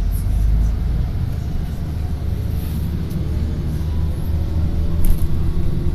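Bus interior noise while moving: a steady low engine and road rumble, with a faint whine that slowly rises in pitch and a short sharp rattle about five seconds in.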